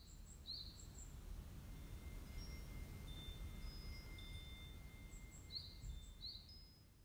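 Tubular metal wind chime ringing softly: a few long, clear tones that overlap and hang on over a low background rumble, with short high chirps near the start and near the end.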